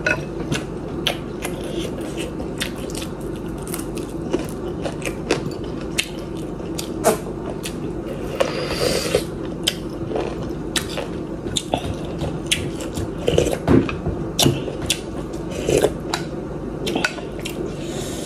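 Close-up eating sounds: chewing mouthfuls of chickpea and instant-noodle soup, with many small mouth clicks and a wooden spoon scraping in a glass bowl.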